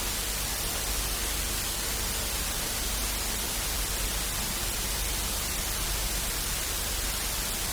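Steady hiss of static noise, even across high and low pitches and unchanging in level.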